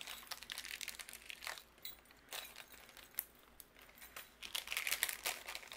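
Clear plastic bag crinkling and rustling in the hands as small pieces are taken out of it, with scattered light clicks; the rustling is busiest near the end.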